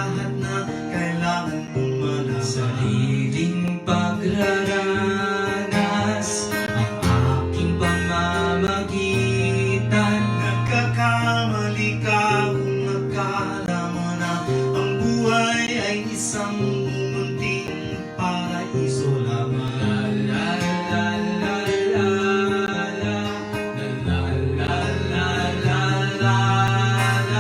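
Music: an acoustic guitar instrumental passage of a Filipino pop ballad, picked and strummed over held low bass notes.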